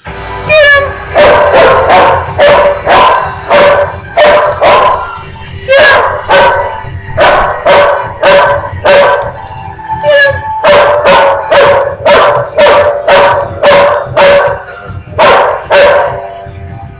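Dog barking in sharp, loud barks, about two a second, with short breaks about five and ten seconds in, during a face-off between two dogs.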